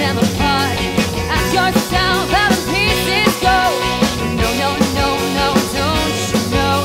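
Rock band recording playing: regular drum hits under a melodic lead line that bends and wavers in pitch.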